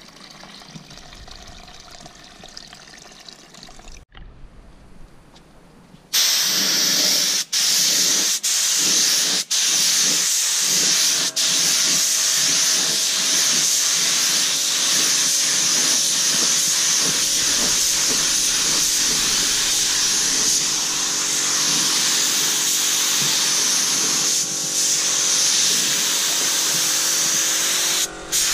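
Compressed-air gravity-feed spray gun spraying acrylic paint onto a car bumper: a loud, steady hiss of air and paint that starts about six seconds in and cuts out briefly a few times.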